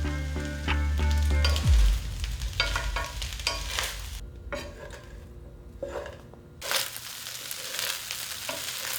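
Background music ending with a low note that drops away under two seconds in, then fried rice sizzling in a hot pan with the scrape and tap of stirring. The sizzle eases off for a couple of seconds in the middle and then comes back.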